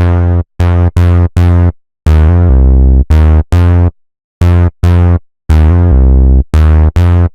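D16 Lush 2 software synthesizer playing a deep, bass-heavy patch in short staccato notes with a bouncy rhythm, broken by two longer notes that step in pitch. It cuts off abruptly at the end.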